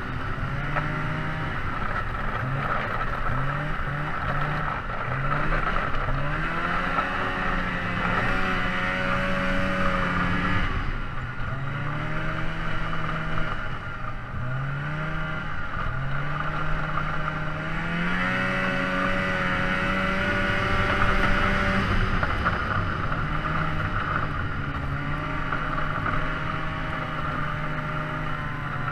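A motor vehicle's engine running under load, its pitch climbing and then dropping back several times, over steady road and wind noise.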